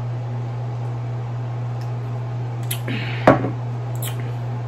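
Drinking soda from a glass, with a short sharp mouth sound a little past three seconds in, the loudest moment, then a light tap near four seconds as the glass is set down. A steady low hum runs underneath.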